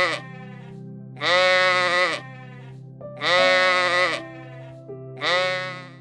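An animal calling three times, each call about a second long and about two seconds apart, over background music with long held notes.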